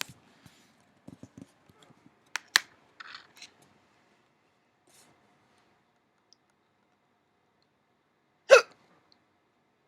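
A person hiccuping: a couple of sharp hiccup clicks about two and a half seconds in, then one loud single hiccup near the end.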